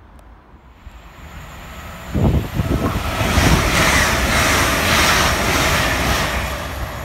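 Passenger train passing through the station on the near track. Its approach builds from about a second in, and a little after two seconds the rushing rumble of the coaches and wheels comes in suddenly loud and stays strong, easing a little near the end.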